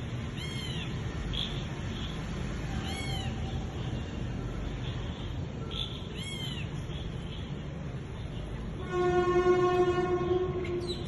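Three short, arching animal calls, rising then falling in pitch, come about three seconds apart over a steady low rumble. Near the end a louder, long, flat horn-like tone holds for under two seconds.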